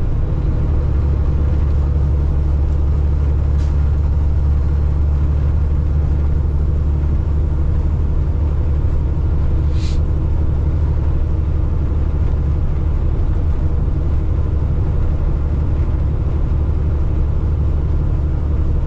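Peterbilt semi truck's diesel engine running steadily at cruising speed, with a constant low drone of engine and road rumble. A short hiss sounds once about ten seconds in.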